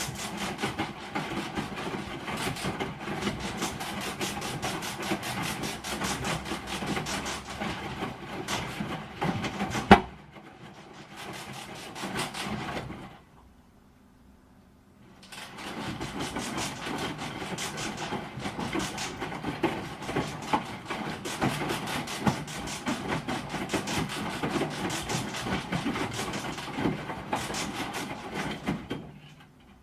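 A broken washing machine running with a fast, constant rattling and knocking over its motor hum. About ten seconds in there is one loud bang, the noise drops, stops for a couple of seconds, then the rattling starts up again.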